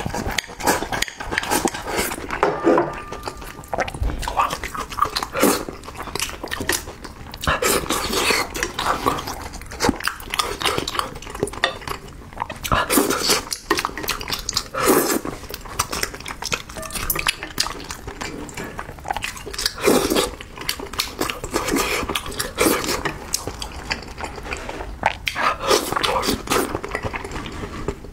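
Close-miked eating sounds: a man slurping, sucking and chewing spicy braised fish and rice, with chopsticks clicking against a glass bowl. Short, irregular clicks and wet mouth noises keep coming throughout.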